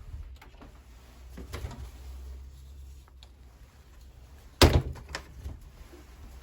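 A single loud bang about two-thirds of the way in, with a few fainter knocks before and after it.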